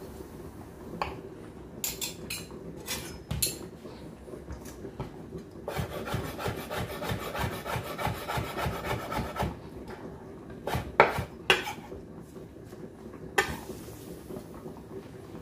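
Chef's knife chopping pickled red pepper on a bamboo cutting board: a fast run of strokes, about five a second, for some four seconds in the middle, with scattered taps before it and a few sharp knocks after it.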